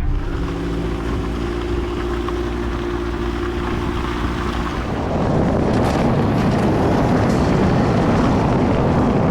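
Four-wheel-drive Toyota Hilux under way: a steady engine hum for about the first five seconds, then a louder, rougher rumble of tyres on the dirt track takes over.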